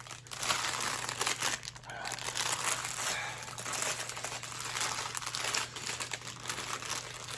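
Plastic packaging crinkling and rustling as an item from a subscription box is pulled out and unwrapped, with a dense crackle of small clicks that goes on throughout.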